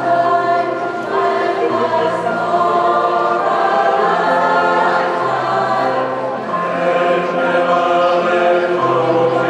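Large choir singing in harmony, with long held notes and a low part moving every second or two.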